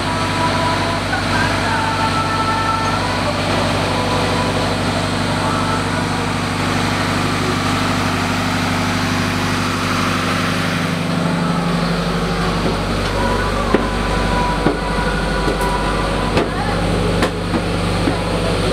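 A cruise boat's engine runs with a steady, loud hum, heard from on board. About eleven seconds in the hum turns deeper, and several sharp knocks come in the last few seconds.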